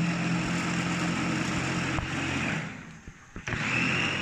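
Electric mini food chopper's motor running, chopping coriander and mint in its clear bowl. It stops briefly about three seconds in, then starts again.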